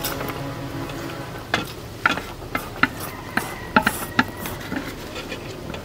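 Eating sounds: utensils clicking and scraping against a plate of stir-fried pho noodles. A run of irregular sharp clicks starts about one and a half seconds in and thins out near the end.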